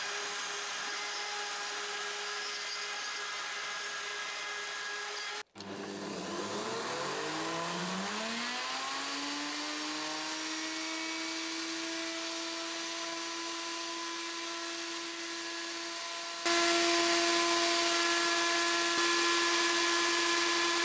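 Spindle moulder running steadily, then, after an abrupt break, its motor starting and winding up over about three seconds to a steady high whine. About 16 seconds in it turns suddenly louder and rougher as a wooden handle blank is fed against the template and cutter.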